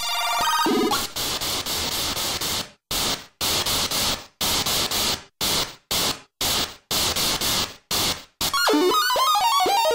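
ymVST software synthesizer, emulating 1980s sound chips, playing a noise-channel clap preset: a run of short bursts of hiss in an uneven rhythm, like electronic hand claps. Near the end a new preset takes over with a fast, warbling pitched chiptune arpeggio.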